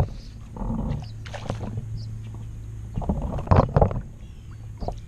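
A hooked sucker splashing and thrashing at the pond surface as it is reeled in to the bank, in a few uneven bursts with the heaviest about three and a half seconds in. A steady low hum runs underneath.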